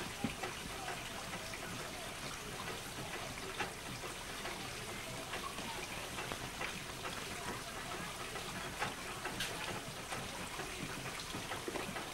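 Steady rush of running water, with scattered small clicks and faint voices now and then.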